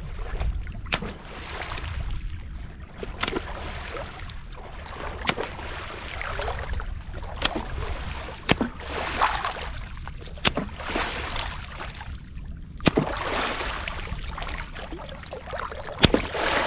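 Lake water splashing and sloshing in repeated swishes, with a sharp knock every second or two.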